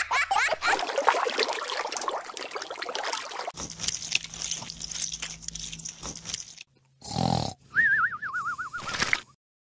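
Cartoon sound effects for stop-motion animation. There is a long stretch of dense, scratchy noise with a few squeaky rising chirps at the start. Near the end, a short wobbling whistle-like tone sits between two brief bursts.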